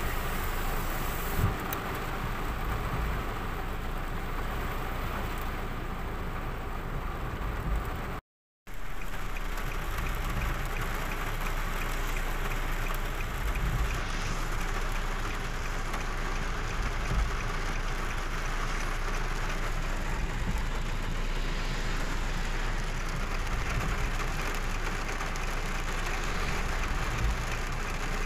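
Heavy rain pelting the car's roof and windshield, heard from inside the cabin together with the steady rumble of the car driving on the flooded road. The sound cuts out for a moment about eight seconds in.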